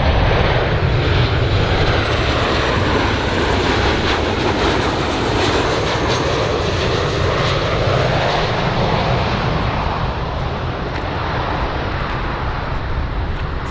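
Large airplane's engines running loud and steady, with a faint high whine over the first few seconds. The sound slowly gets quieter toward the end.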